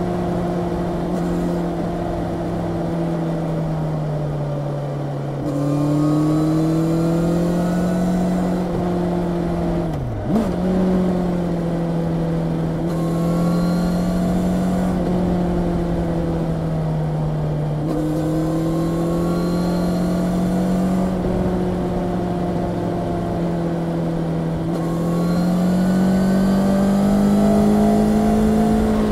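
Honda CB650R's inline-four engine running under way, its pitch rising and falling several times with the throttle. About ten seconds in there is a brief sharp dip in pitch before the note picks up again, and it climbs again near the end.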